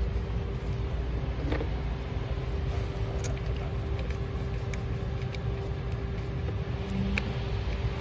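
Steady low mechanical rumble with a constant hum, with a few light clicks over it.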